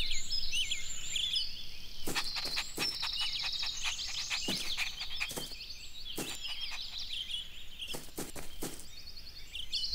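Many small birds chirping and twittering in quick high calls, with a few light thuds and knocks scattered through.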